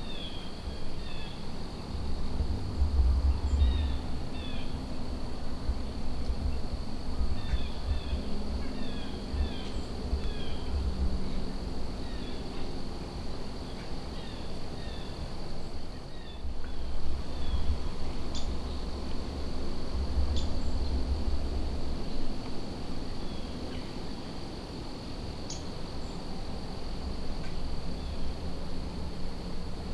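Crickets trill steadily in a field at dusk, with scattered short falling bird chirps, mostly in the first half. A low gusty rumble of wind on the microphone comes and goes.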